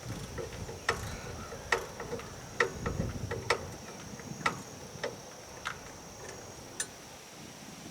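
Sharp, irregular metal clicks from a hand tool, roughly one a second, as bolts are fitted to a skid steer's exhaust manifold. A faint steady high tone runs underneath.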